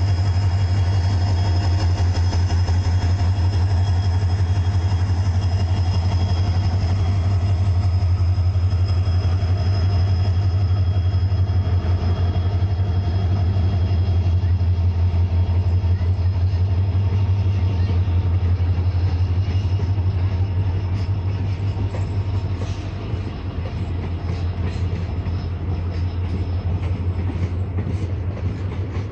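Indian Railways EMD diesel locomotive pulling out with a deep, steady engine throb and a steady whine. Over the last several seconds the sound drops a little and the passenger coaches roll past, their wheels clicking over the rail joints.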